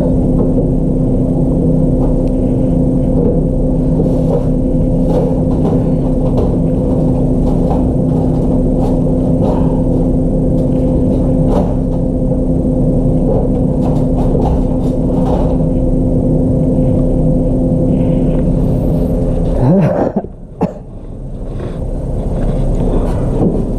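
Refrigerator running with a loud, steady hum and scattered light clicks, the strange noise it is making. About twenty seconds in, the hum drops in pitch and cuts off.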